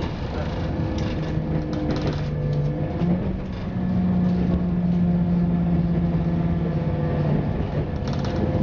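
Inside a class 172/0 Turbostar diesel multiple unit on the move: a steady diesel engine hum over wheel and rail noise, with the note stepping up slightly about three seconds in. A few clicks come as the wheels cross pointwork onto the diverging single track, about one and two seconds in and again near the end.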